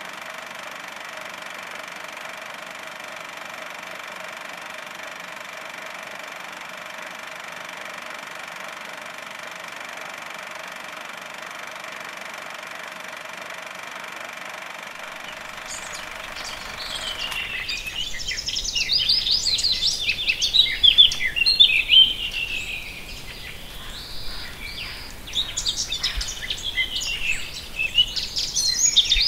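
A steady hiss with a faint high whine, then about seventeen seconds in a chorus of small birds chirping and twittering, rising and falling in loudness.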